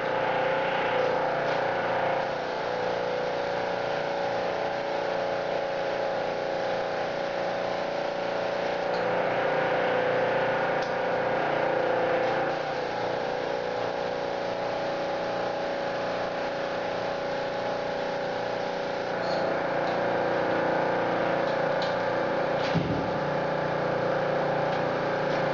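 Paint spraying equipment running while metal test pieces are sprayed, one of them electrostatically: a steady motor hum with a hiss of air and paint spray.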